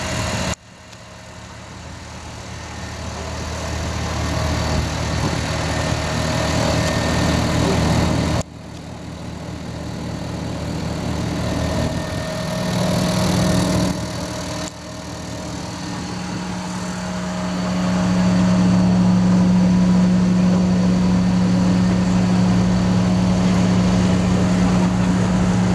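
Truck diesel engines running, heard in several short clips that cut off abruptly; the sound grows louder within each clip, and from about two-thirds of the way in it settles into a steady, loud engine note.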